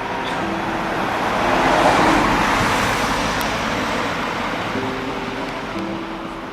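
A road vehicle passing by: its tyre and engine noise swells to a peak about two seconds in, then fades away slowly.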